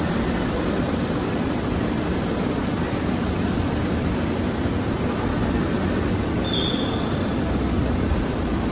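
Woodworking CNC router running: a steady, even machine noise, with one brief high squeak about six and a half seconds in.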